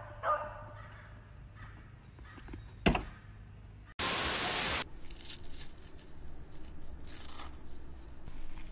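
A goat bleats once at the start. A single thump follows near the middle, then a loud burst of TV static hiss lasting under a second. Faint scattered scraping and clicks follow it.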